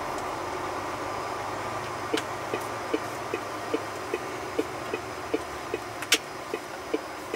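Inside the cab of a moving MAN TGX truck: steady engine and road noise, and from about two seconds in the turn-signal indicator ticking, about two and a half ticks a second. One sharper click comes near the end.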